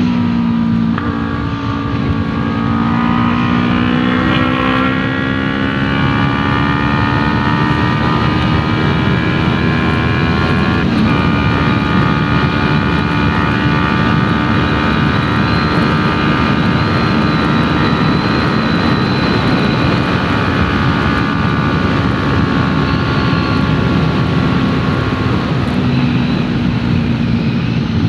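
Yamaha R3's 321 cc parallel-twin engine running through an aftermarket Arashi exhaust while riding. The revs climb over the first ten seconds, drop briefly about eleven seconds in, then hold steady for a long stretch before easing down near the end.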